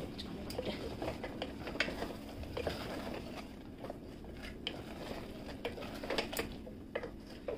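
Wooden spatula stirring a thick vegetable curry in an aluminium pressure cooker, with soft irregular scrapes and taps against the pot.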